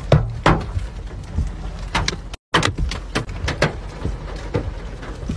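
Hailstones striking a car's body and its cracked windshield: irregular sharp knocks, several each second, over the low rumble of the car. The sound cuts out for an instant about halfway through.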